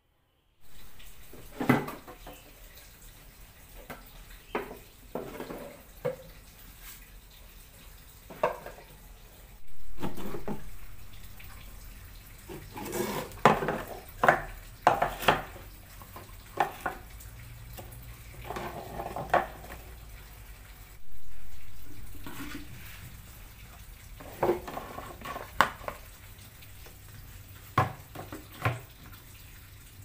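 Hard plastic storage baskets and plastic detergent bottles knocking and clattering as they are handled and set down on a tiled floor, a string of scattered knocks. Twice a louder rushing sound starts suddenly and fades over a couple of seconds.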